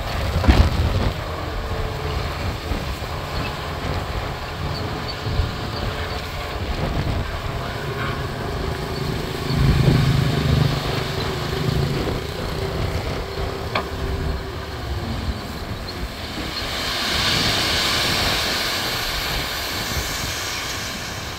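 Heavy diesel earthmoving machinery running at a steady engine note, with a louder surge about ten seconds in and a few sharp clanks. Near the end a hissing rush rises and fades over several seconds.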